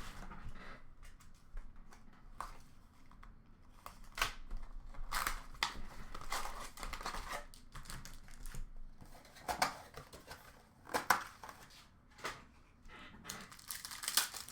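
Hockey trading card pack wrapper being crinkled and torn open, with cards handled between the tears. It comes as irregular short rustles and snaps.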